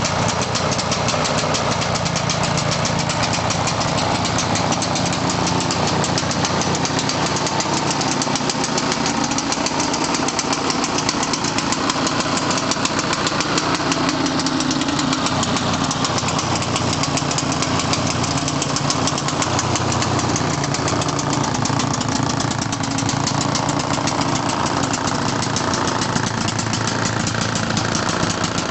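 Vintage snowmobile engine running steadily at an even pace, with a rapid, buzzy firing rhythm.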